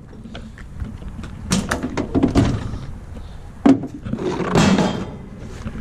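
Tools and gear being shifted around in a truck's toolbox: scattered knocks and clunks with scraping and rustling, and one sharp knock about two-thirds of the way in.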